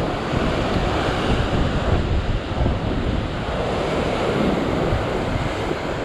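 Ocean surf breaking and foaming over rock ledges in a steady rush, with wind buffeting the microphone.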